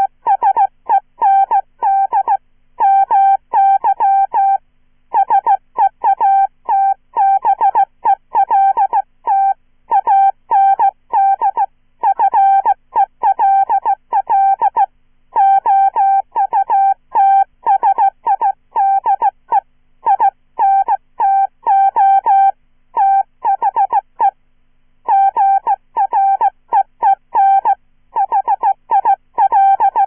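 Morse code keyed by hand on a Czech straight key at about 15 words per minute, sounded as a synthesized 'chirpy' tone. Short and long beeps of one steady pitch come in quick letter groups separated by brief pauses.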